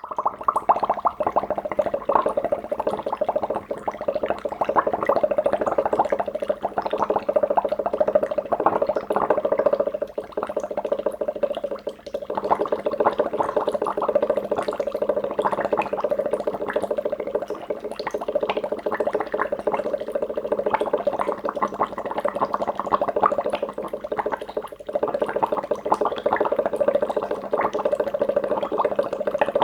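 Liquid bubbling continuously, a dense rapid patter of small bubbles popping at the surface, like a vigorous boil or fizzing reaction. It eases off briefly twice.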